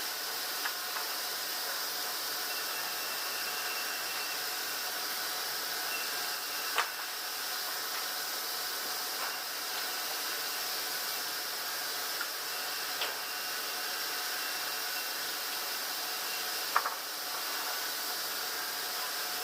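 Steady mechanical hiss with a few faint whining tones running under it, broken by a few sharp knocks, the clearest about a third of the way in and near the end.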